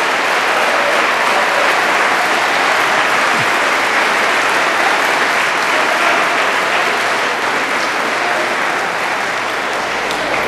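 Large audience applauding, a dense, steady clapping that tapers off slightly near the end.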